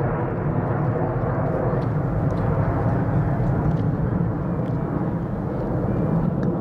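Steady jet roar of a twin-engine airliner climbing out just after takeoff, a deep, even rumble with little high-pitched content.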